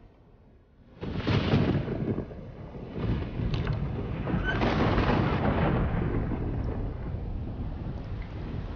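Rolling thunder: a sudden loud crack about a second in, then a second deep rumble that builds to a peak and slowly dies away.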